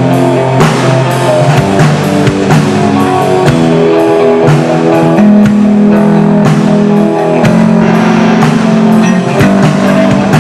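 Rock band playing live: electric guitars holding chords over a steadily hit drum kit.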